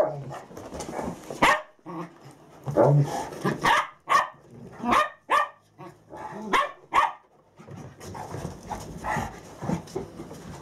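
Two dogs, a Rhodesian ridgeback and a young medium poodle, at play: a string of about ten short, sharp barks over the first seven seconds or so, then a quieter stretch of the dogs moving about.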